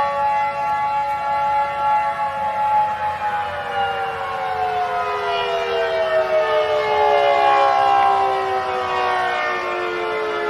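Civil defense siren sounding a steady tone, then winding down, its pitch falling slowly from about three seconds in.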